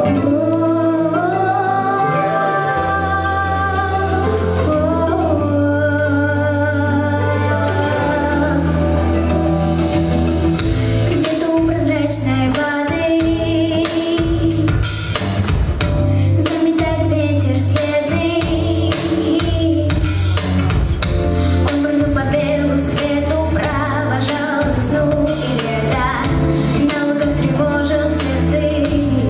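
A young girl singing a melody over an instrumental accompaniment with steady bass and drums. The drum strokes get busier about a third of the way in.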